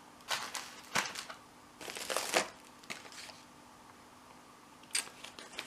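Packaging crinkling and rustling as items are lifted out of a parcel, with a few sharp handling knocks, the longest crinkle about two seconds in.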